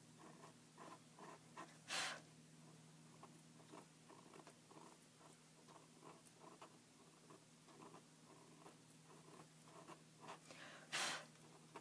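Knife blade scraping old glue residue off the edge of a book page: faint, quick, repeated scratches of steel on paper, with two louder rasps, one about two seconds in and one near the end. The residue is paste from a later, non-original attachment, being cleared so the torn page can be re-attached.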